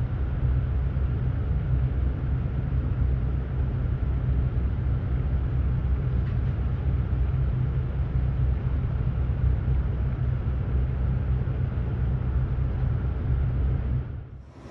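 A steady low rumble with a faint hum above it, dipping away near the end.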